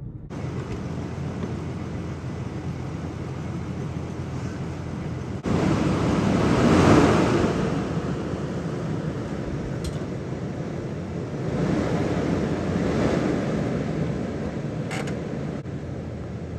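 Wind rushing across the microphone, stepping louder about five seconds in and swelling in two gusts, with two faint clicks.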